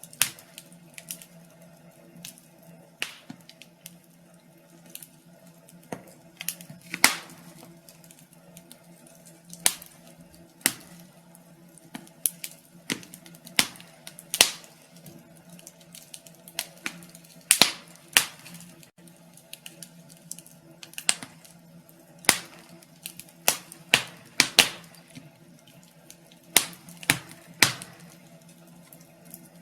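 Wood fire crackling in a fireplace: irregular sharp snaps and pops, about one or two a second and varying in strength, over a faint steady low hum.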